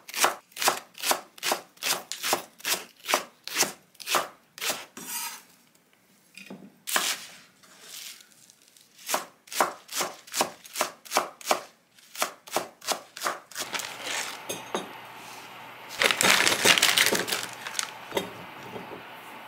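Chef's knife chopping scallion and then chives on a wooden cutting board, in steady knocks about three a second with a couple of short pauses. In the last few seconds a plastic bag rustles as frozen battered shrimp and pork pieces are tipped out of it into a tray.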